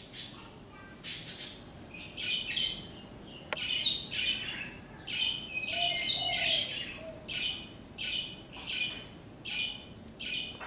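Small birds chirping, with short high-pitched chirps repeating about every half second to a second. Faint low dove coos come in underneath about two-thirds of the way through.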